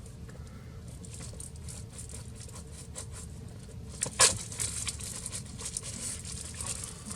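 Packaging of a small ruled notebook being opened by hand: light crinkling and rustling with small tearing sounds, and one louder crackle about four seconds in.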